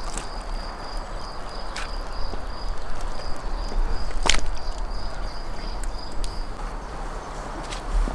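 An insect chirping in a fast, even high-pitched pulse that stops about two seconds before the end, over a low rumble, with a few sharp clicks, the loudest about halfway through.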